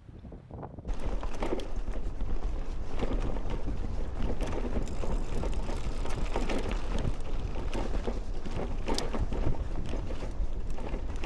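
Strong wind buffeting the microphone: a loud, rough rumble with scattered crackles that starts suddenly about a second in.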